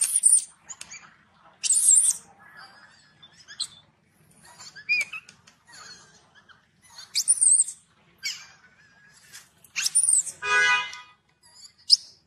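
Baby macaque screaming in repeated short, very high-pitched squeals with fainter chirps between, and a longer, lower pitched cry about ten and a half seconds in: distress calls of an infant being refused the nipple.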